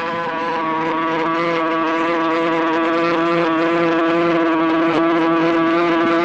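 A bee buzzing in one steady, unbroken drone.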